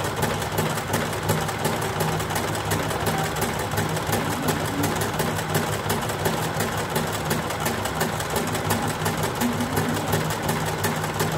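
Small portable electric sewing machine running steadily, its needle stitching at a fast, even rhythm over a steady motor hum while a narrow rolled hem is sewn.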